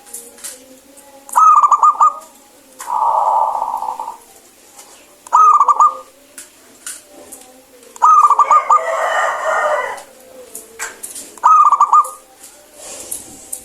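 Zebra dove singing: short phrases of rapid staccato cooing notes, four in all, spaced about three to four seconds apart. A longer, rougher call comes twice between the phrases.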